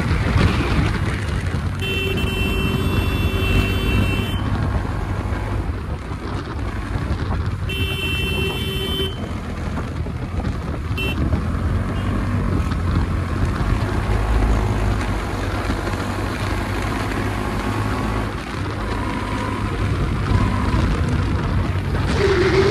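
Motorcycle riding along a road, its engine running under a heavy wind rumble on the microphone. A vehicle horn honks three times: a long honk about two seconds in, a shorter one about eight seconds in, and a quick beep about eleven seconds in.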